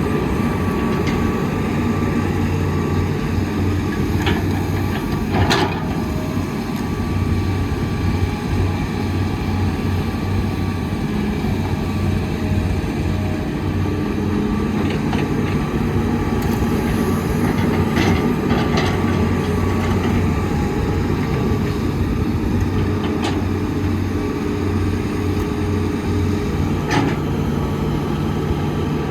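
Heavy diesel engine of construction machinery running under varying load, its note shifting up and down, with a few sharp knocks at intervals.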